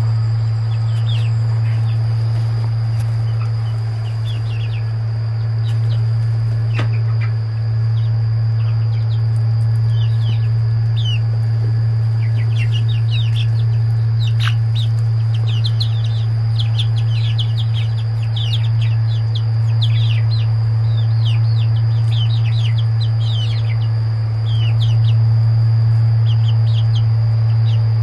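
Seven-week-old chicks peeping: many short, high chirps that fall in pitch, scattered throughout and thickest in the middle and later part. A loud, steady low hum runs underneath them.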